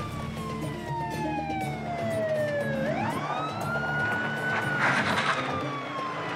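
Police vehicle siren wailing, its pitch sliding slowly down, sweeping back up about three seconds in, then sliding down again. A short burst of noise comes about five seconds in.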